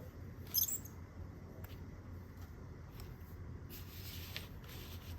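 Light handling noises from small toy pieces or packaging: a sharp click about half a second in, a few faint taps, then rustling near the end, over a low steady hum.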